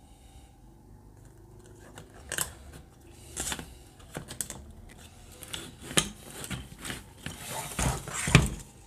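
Nylon cable ties being pulled tight around the plastic frames of computer cooling fans: scattered clicks and plastic rattles. Near the end, the fan frames rattle and knock as the block of fans is lifted and turned over.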